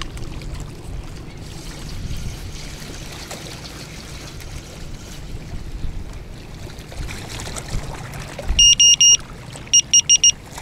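Wind and waves lapping on a stony reservoir shore. Near the end come two quick runs of high electronic beeps, four or five beeps each, a second apart.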